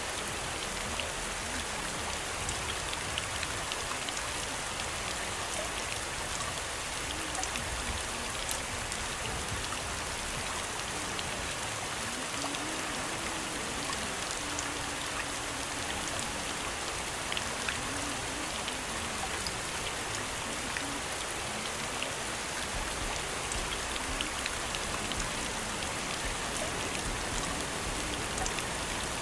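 Steady rain falling: an even hiss with scattered ticks of single drops.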